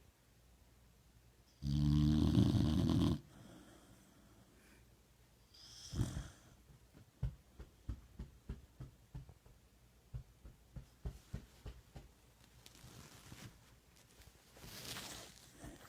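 A pit bull-type terrier snoring loudly: one long, deep, rattling snore about two seconds in, a breathy snort a few seconds later, then a string of soft short clicks about twice a second and a quieter breath near the end.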